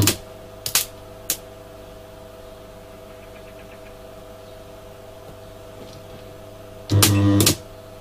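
Modified microwave oven transformer, rewound as a spot welder, humming steadily at no load, with a few sharp cracks in the first second and a half as the cable lugs make brief contact. About seven seconds in, a loud half-second buzz as the output leads are shorted together: the welder drawing over 400 amps.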